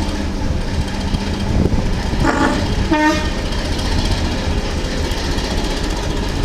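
A locomotive sounds two short toots about a second apart, over a steady low rumble from the train.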